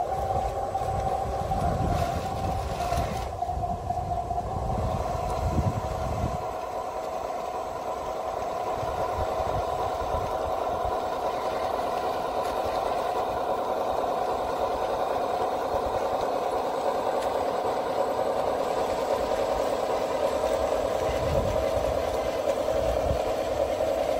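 Radio-controlled scale Caterpillar D9 crawler tractor running under its own small engine, which holds a steady drone as the model crawls along towing a loaded log trailer. A low rattling clatter runs under the engine for about the first six seconds.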